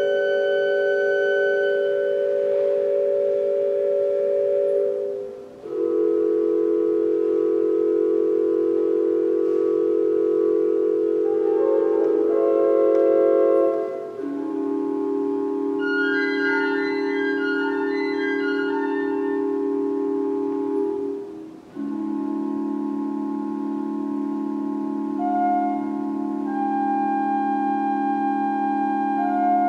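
Organ playing slow, sustained chords, each held for several seconds without fading, with a short break between chords as the harmony steps down in pitch.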